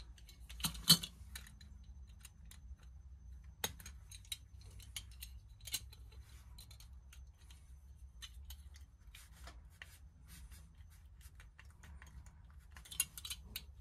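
Small metal clicks and taps as a die-cast toy truck base is handled and worked with pliers, the pliers' jaws clicking against the metal. The loudest click comes about a second in, with scattered ticks after and a quick cluster near the end.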